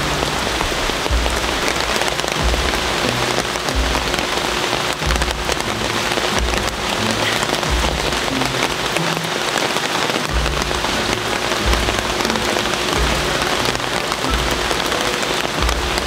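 Steady rain falling, a dense hiss of drops, with background music underneath carrying a slow, low beat.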